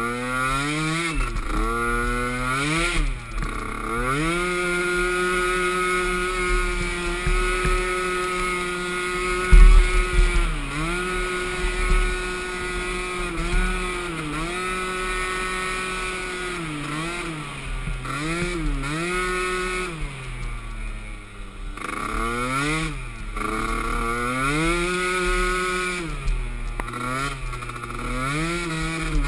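Small youth-class ATV engine racing at high revs: it holds a steady high pitch, then drops off and climbs again every second or two as the throttle is let off and reopened. A heavy thump comes about ten seconds in.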